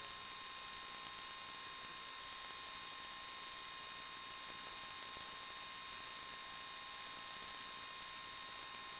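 Steady electronic static hiss with a constant high-pitched whine, unchanging throughout: the noise on the audio of an analog FPV video-link recording.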